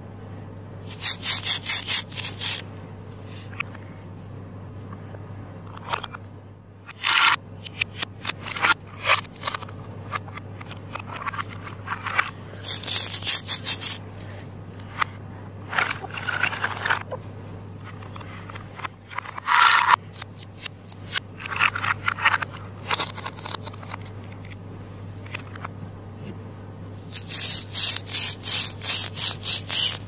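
Toy plastic play-food fruits being pulled apart at their hook-and-loop (Velcro) seams: several short bursts of fast ripping, with plastic pieces knocking and rubbing against each other in between. A steady low hum runs underneath.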